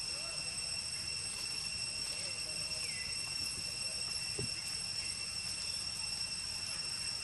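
Steady high-pitched insect drone that holds one pitch throughout, with a low rumble underneath.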